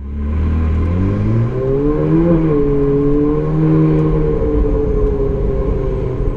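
Ferrari 458 Spider's V8 engine pulling away from a stop, heard from the open-top cabin: the revs climb for a couple of seconds, dip briefly, hold steady, then drop to a lower, even drone for the rest.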